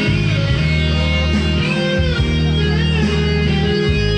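A man singing into a microphone over guitar-led musical accompaniment, holding notes with a wavering vibrato.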